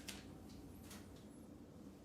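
Near silence with a few faint light clicks and rustles of trading cards being handled.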